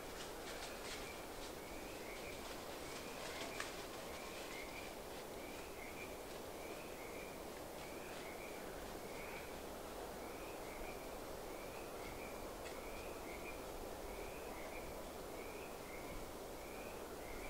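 A small animal calling steadily: short high chirps repeated evenly, about three every two seconds, over a faint background hiss.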